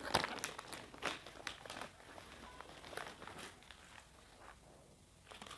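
Faint crinkling of thin plastic packaging and light clicks as a set of paint brushes and their loose clear plastic bristle caps are handled. The clicks and crinkles are busiest in the first couple of seconds and fade to soft rustles near the end.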